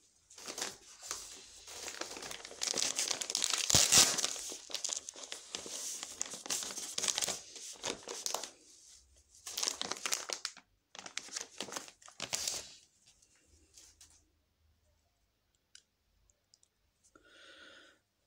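Packaging crinkling and tearing as it is opened by hand, in uneven bursts for about twelve seconds, loudest around four seconds in. A few faint clicks follow.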